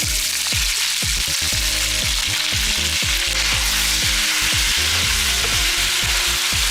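Boneless mutton frying in hot oil, a steady loud sizzle.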